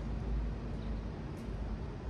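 Traffic on a wet city road: a steady low rumble of vehicles with the hiss of tyres on wet asphalt.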